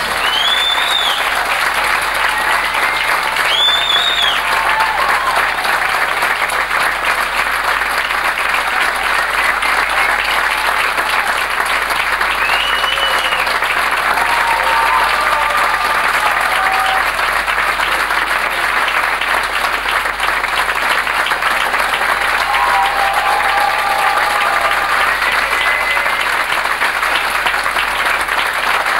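Theatre audience applauding steadily throughout, with a few whistles and cheers.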